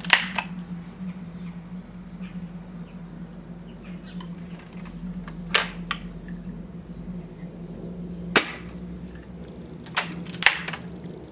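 BSA Meteor Mk V break-barrel spring air rifle being handled and cocked: a handful of sharp metallic clicks and clacks from its barrel and action, a few seconds apart, with two close together near the end.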